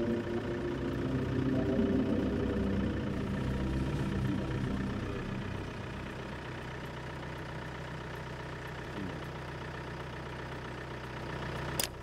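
Vehicle engine idling steadily, with a single sharp pop near the end from a dart rifle being fired.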